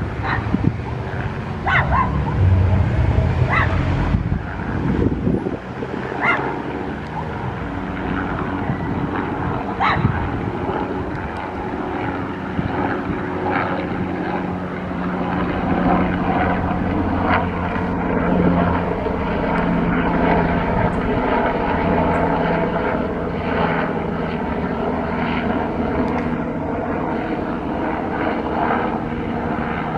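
Bell 206 helicopter flying past low overhead: its Allison 250 turboshaft and two-bladed main rotor run steadily, louder a couple of seconds in and again around the middle. Several short sharp sounds cut through at irregular intervals, mostly in the first ten seconds.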